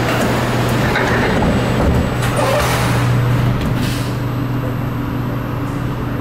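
C751B metro train standing at the platform with its doors open, its onboard equipment giving a steady low hum. A couple of low knocks come about two seconds in, followed by a few short hisses of air.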